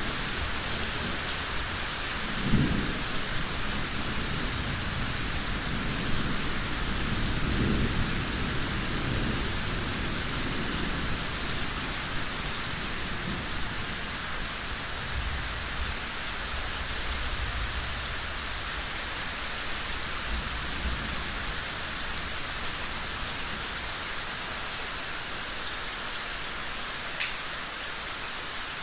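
Heavy rain falling in a steady hiss during a thunderstorm. A sharp clap of thunder comes about two and a half seconds in, followed by longer low rolls of thunder later on.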